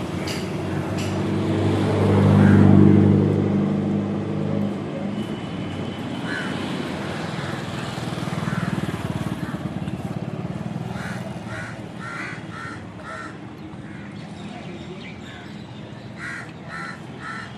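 Street traffic: a motor vehicle's engine passes close by, loudest about two to three seconds in, then fades. Near the end, crows caw in short runs of three or four calls.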